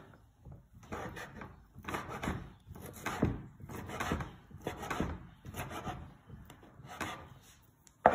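Kitchen knife chopping cured pancetta into cubes on a wooden cutting board, about two cuts a second, each cut ending in a knock of the blade on the wood. One louder, sharper knock comes at the very end.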